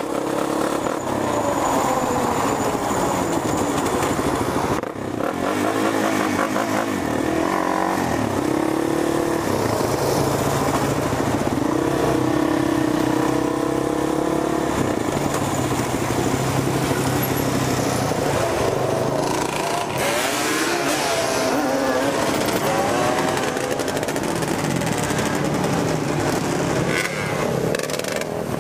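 ATV (quad bike) engine being ridden hard, its pitch rising and falling over and over as the throttle is opened and shut through the gears, with a brief drop in revs about five seconds in.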